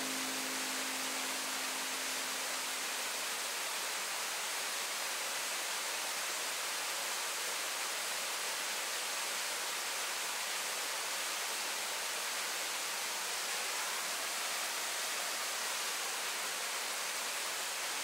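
Steady, even rushing of a nearby mountain stream, with the last low note of a music track fading out in the first few seconds.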